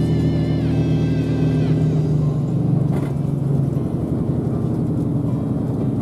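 Route bus running, heard from inside the cabin: a steady engine hum and drivetrain whine, the whine dropping in pitch twice in the first two seconds. A brief click comes about three seconds in.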